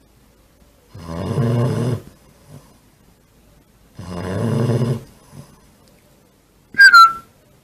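Snoring: two low snores, each about a second long and about three seconds apart, then a short, loud high whistle near the end that falls slightly in pitch.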